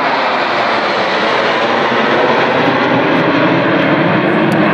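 A formation of Mirage 2000 fighter jets flying low overhead, their jet engines making a loud, steady rushing noise.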